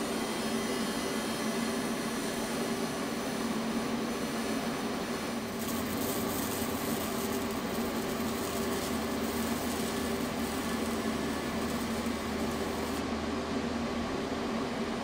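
TIG welding arc on 1/8-inch steel, with filler rod fed in by hand: a steady hiss over a low hum. The hiss grows brighter about five seconds in and cuts off about thirteen seconds in, as the arc is stopped.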